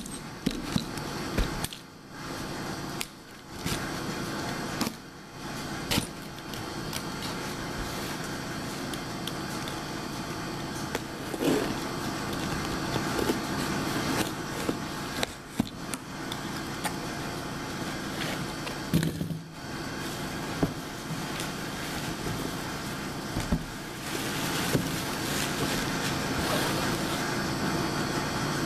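A cardboard shipping box being handled and moved on a table: scattered knocks and scrapes over a steady background hum.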